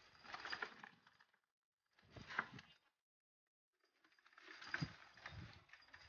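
Fancy pigeons moving about in a loft: three short, faint bursts of rustling and clicking, with silence between them.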